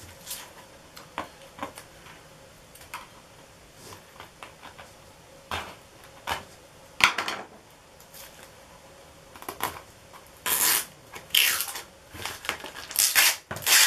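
Light polyester peel ply being picked loose and ripped off a cured composite tube: scattered small scratches and clicks, then several short ripping tears near the end. The thin fabric tears in pieces rather than coming away whole.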